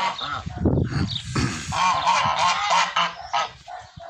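A flock of Linda geese honking, several birds calling over one another without a break, easing off near the end.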